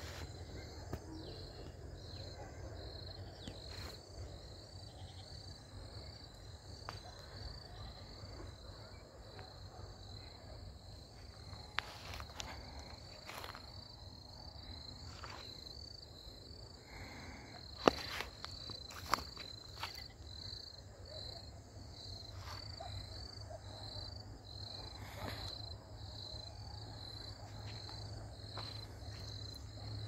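Insect chirping outdoors: a steady high pulse about one and a half times a second, over a low steady rumble. A few sharp clicks cut in around the middle, the loudest just past halfway.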